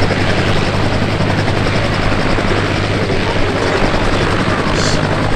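Westland helicopters in flight: loud, steady rotor and turbine engine noise with a constant low hum.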